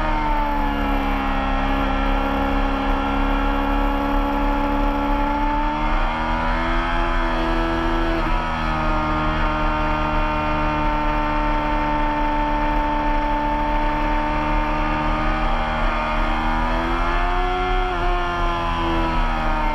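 Race motorcycle engine running hard on track, its pitch sinking and climbing slowly with the throttle and holding steady through long stretches, with wind rushing past the bike.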